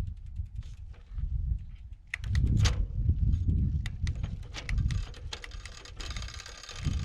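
A bicycle being ridden with wind gusting on the microphone, and many irregular light clicks and ticks over it. A steady hiss comes in about six seconds in.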